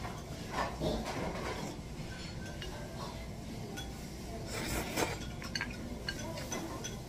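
Ramen noodles slurped off chopsticks, with one stronger slurp a little past halfway, amid light clinks of chopsticks and tableware.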